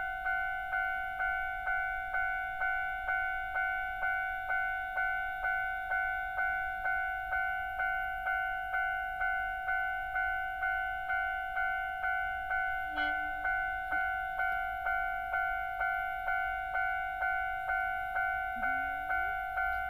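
Japanese railway level-crossing alarm ringing a repeating two-tone electronic chime, about two strikes a second, each fading before the next.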